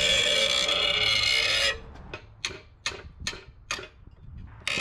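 A loud steady hiss for about the first second and a half, then a hand ratcheting wrench clicking in quick short strokes on a rear-axle backing-plate nut, with a brief hiss again near the end.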